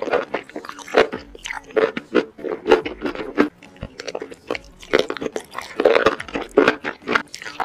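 Close-miked eating of spicy sauced enoki mushrooms: slurping and chewing, with quick wet mouth clicks and smacks in irregular succession.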